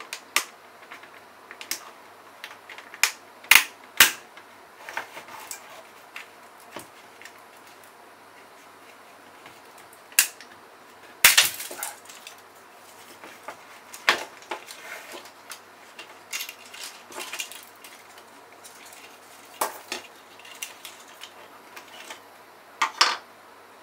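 Plastic housing parts of a steering-column clock spring clicking and clacking as it is taken apart by hand, with irregular light clicks and a few louder knocks.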